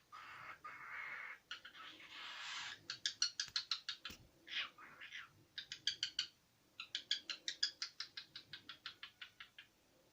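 A cockatiel chattering in fast runs of short, high chirps, about eight to ten a second, in three bursts after a few seconds of hissy noise.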